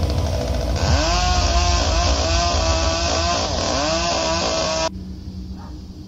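Chainsaw revving hard, its pitch dipping and recovering several times, after a second of low rumble. It cuts off abruptly about five seconds in.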